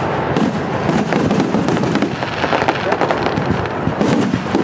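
Fireworks going off: a continuous run of many overlapping sharp bangs and cracks.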